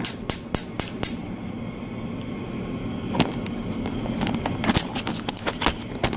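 Gas range burner's electronic spark igniter clicking rapidly, about four sparks a second, as the knob is held on LITE; the clicking stops about a second in once the burner catches. A few scattered clicks and knocks follow.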